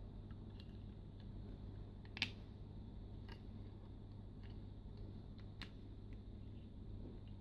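Plastic joints and parts of an MFT MF-19 Cyclonus transforming robot figure clicking as they are folded by hand, with one sharper snap about two seconds in, over a low steady hum.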